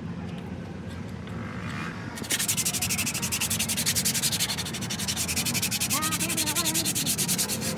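Hand rubbing a truck's steel brake drum, a dry scraping rasp in fast, even back-and-forth strokes several times a second. It starts about two seconds in, after quieter fiddling with the brake parts.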